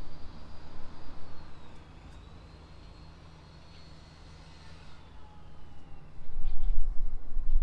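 Distant vehicle noise from a residential street, with a faint high whine that slowly wavers and then slides down in pitch, over a steady low rumble. The low rumble grows much louder in the last second and a half.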